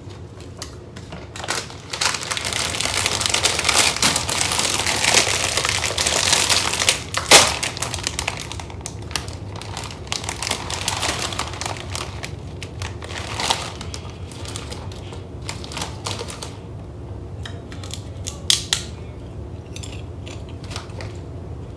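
Plastic potato-chip bag crinkling loudly as it is handled and pulled open, with one sharp snap about seven seconds in, followed by scattered lighter rustles and crisp crackles.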